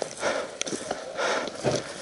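Hard breathing about once a second, with footsteps and a few short knocks of gear as a paintball player moves.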